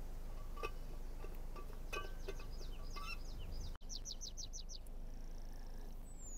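Small songbirds chirping, with a quick run of about seven high notes about four seconds in and a short falling whistle near the end, over a steady low rumble of wind on the microphone.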